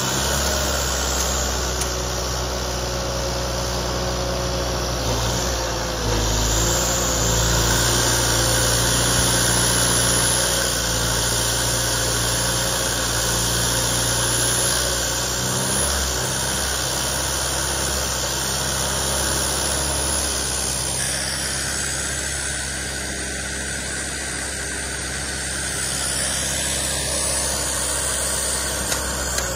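Genie GTH-1056 telehandler's diesel engine running steadily while it rakes snow, working harder and louder from about six seconds in and easing off later.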